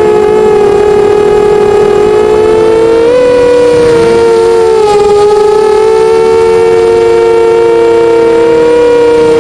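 Eachine 250 FPV racing quadcopter's brushless motors whining in flight, several close pitches that drift apart and together as the throttle shifts, with a brief rise in pitch about three seconds in.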